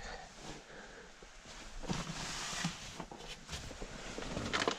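Footsteps and faint rustling, with a few soft knocks scattered through.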